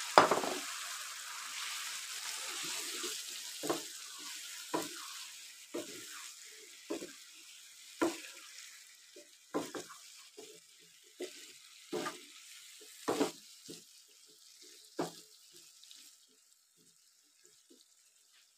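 Potato sticks sizzling in a frying pan of tomato-and-spice masala while a wooden spatula stirs them, knocking against the pan about once a second. The sizzle fades steadily and the stirring stops near the end.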